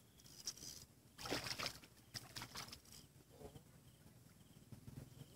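A short splash and slosh of shallow water about a second in, from an angler wading while he casts, over otherwise quiet open-air ambience.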